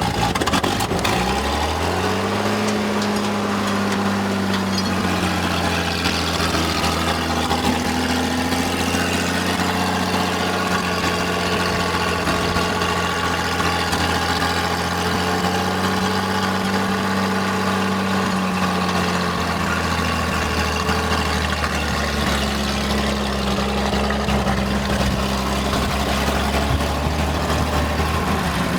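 Ram log skidder's Mopar engine running: it picks up speed about a second in, then settles into a steady idle.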